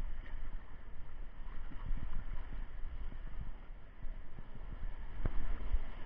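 Rider and rushing water sliding down a water slide chute, heard as a low rumble with irregular thumps and a sharp knock about five seconds in.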